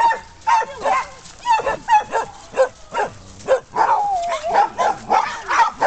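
A dog barking in short, high yips about twice a second, with a longer wavering whine about four seconds in.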